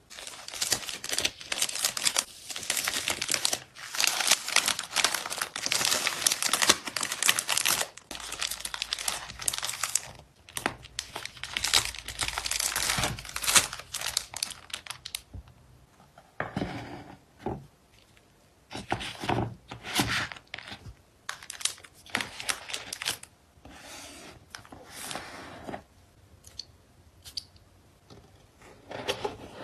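Plastic packing material crinkling and tearing as photocards are packed by hand. A dense, continuous crackle for about the first half gives way to separate short rustles and taps with quiet gaps between them.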